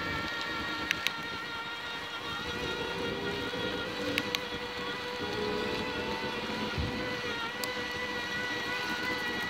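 Electric bicycle motor whining steadily while riding, over road noise. A few sharp clicks come about a second in and again about four seconds in.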